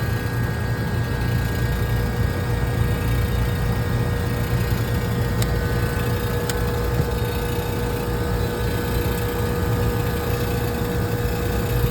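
Carrier rooftop unit running with its first- and second-stage scroll compressors and blower motor energised, giving a steady low hum with a constant mid-pitched tone over it.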